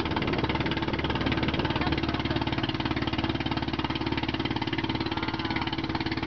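Motorized outrigger boat's (bangka) engine running steadily under way, a rapid, even chugging that stays constant throughout.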